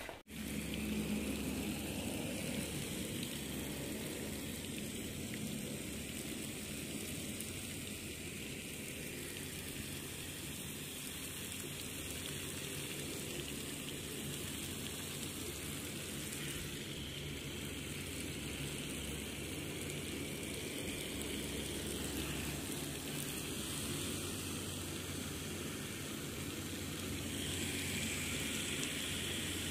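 Garden watering spray hissing and pattering steadily as it falls on potted plants and the paving around them.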